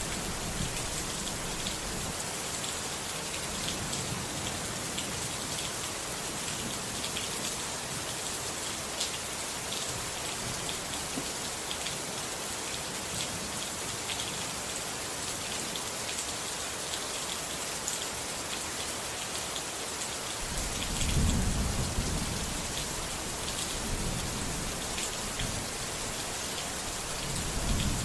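Steady rain falling, a dense hiss with fine pattering drops. A low rumble of thunder swells about 21 seconds in, and another begins near the end.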